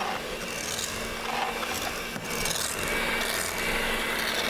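Electric hand mixer running with a steady motor hum, its beaters working through thick cream puff (choux) dough as an egg is beaten in.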